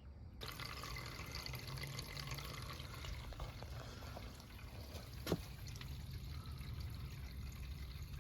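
GE dishwasher running, with water rushing and splashing inside the tub; it starts abruptly about half a second in as a cycle begins. A single sharp click sounds a little past halfway.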